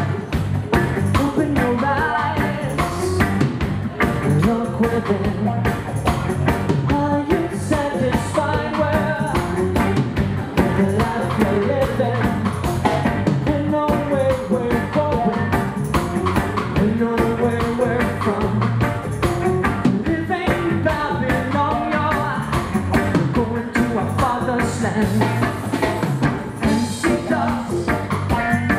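Band music with singing over a steady drum beat.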